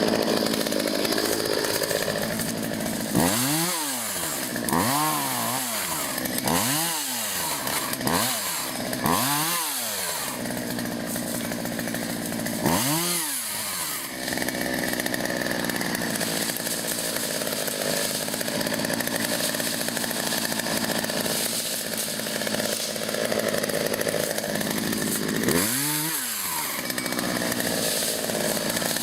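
Chainsaw running steadily, its engine revved up and back down in short bursts, five times in the first half and once more near the end.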